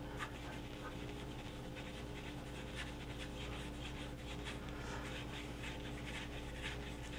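Hands rolling a rope of bread dough back and forth on a plastic cutting board: faint, soft rhythmic swishing, a few strokes a second, over a steady low hum.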